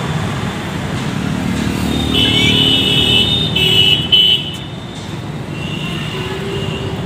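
Steady road traffic, with a vehicle horn sounding in three blasts between about two and four and a half seconds in, then cutting off sharply.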